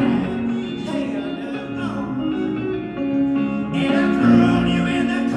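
Live folk song: fingerpicked acoustic guitar with singing.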